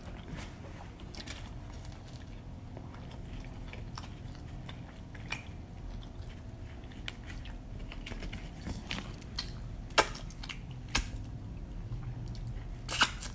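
Pizza being bitten and chewed close to the microphone, with scattered soft mouth clicks and two sharper clicks about a second apart late on.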